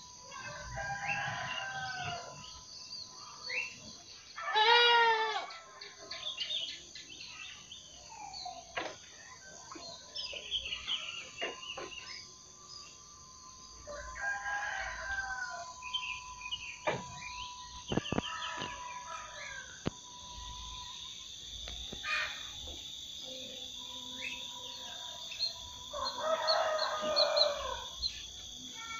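Village roosters crowing several times, the loudest about five seconds in, with small birds chirping in between over a steady high-pitched hum.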